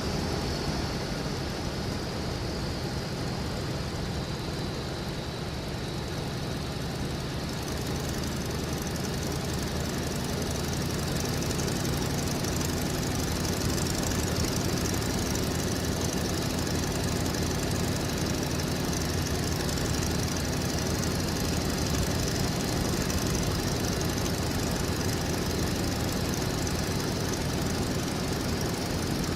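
Stearman biplane's radial engine running steadily, heard from the open cockpit with rushing air noise. The sound grows brighter and a little louder from about seven seconds in.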